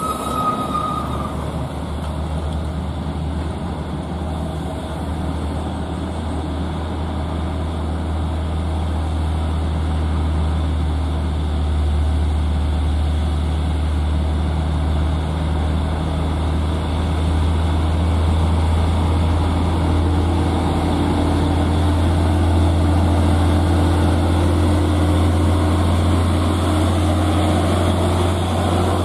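Diesel engines of a convoy of heavily loaded Hino Ranger trucks running slowly: a steady low drone that grows louder in the second half as the lead truck comes close and passes.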